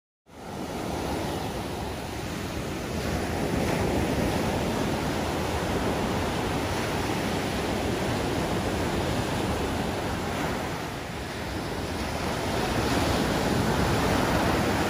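Ocean surf breaking and washing up on the beach: a steady rushing noise that swells and eases, cutting in abruptly just after the start.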